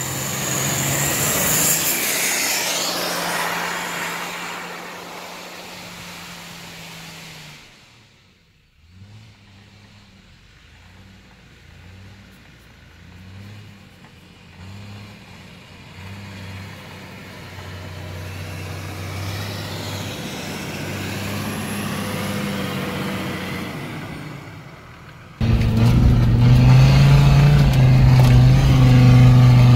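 Off-road 4x4s driving through deep snow: a Toyota Land Cruiser HDJ80 diesel passes close, loudest about two seconds in, then fades. A Land Rover Discovery TD5 engine then revs up and down as it works up the snowy track, and near the end a loud, steady engine drone is heard from inside the cab of another 4x4.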